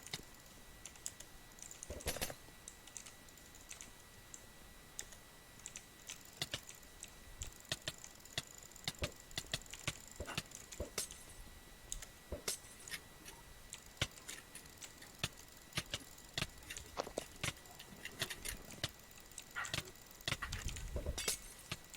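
Irregular sharp clicks and taps, several a second at times and sparser at others, over a faint steady high-pitched whine.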